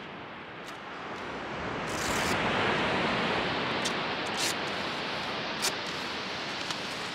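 Surf washing onto a beach: a steady rush of noise that swells into a breaking wave about two seconds in and then slowly eases off, with a few faint clicks.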